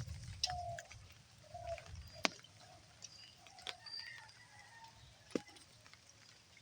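Birds calling outdoors: short low coo-like notes repeating roughly every second, with thin high chirps, broken by a few sharp clicks, the loudest about two seconds in.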